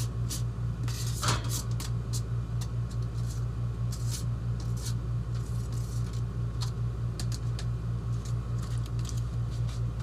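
A knife scraping chopped bell pepper off a paper plate into a frying pan, with scattered light clicks and taps of the pieces and utensils, busiest in the first couple of seconds. Underneath is a steady low hum that throbs about four to five times a second and stops abruptly at the end.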